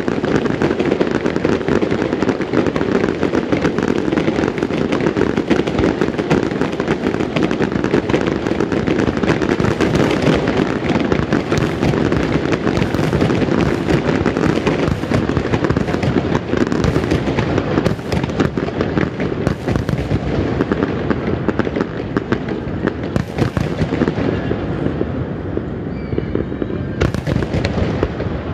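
Fireworks display: a dense, continuous barrage of aerial shell bursts and crackle, easing off a little in the last few seconds.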